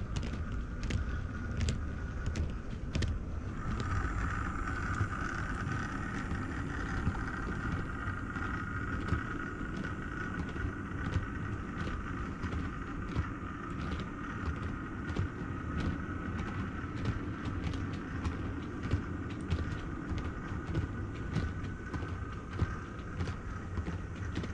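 OO gauge model train running along the layout: a steady motor whine over a low rumble, with sharp clicks of the wheels passing over rail joints. The whine grows louder a few seconds in and eases near the end.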